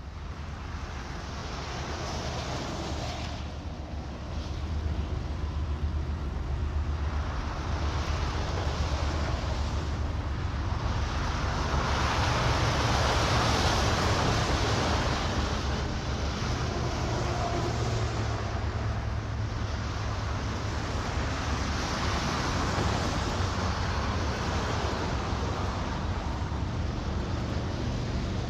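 A vehicle's steady low engine rumble with rushing noise. It grows louder over the first half, then holds steady.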